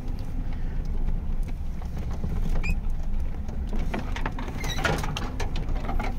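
Lada Niva rolling slowly over a rough, muddy mountain track, heard from inside the cabin: a steady low engine and road rumble with creaks, knocks and rattles from the body and suspension, and a few short squeaks midway and about five seconds in.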